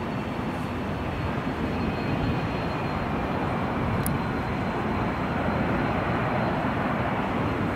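Boeing 737-800 airliner's CFM56-7B turbofan engines on final approach, a steady jet roar that grows slowly louder as the aircraft comes closer.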